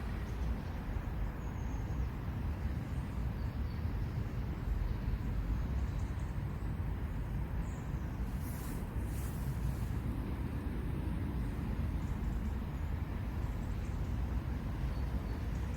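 Steady low outdoor rumble, with a brief high hiss about eight and a half seconds in.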